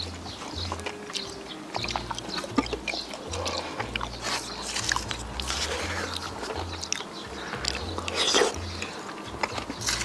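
Close-up eating sounds: a person chewing, with many scattered short clicks and smacks.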